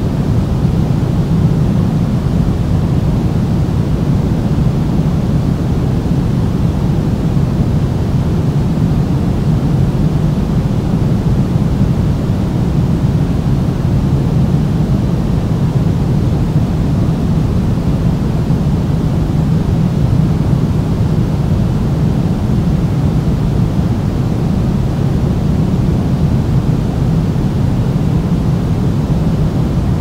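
Steady synthetic pink noise: an even, unchanging rush of noise, strongest in the low range.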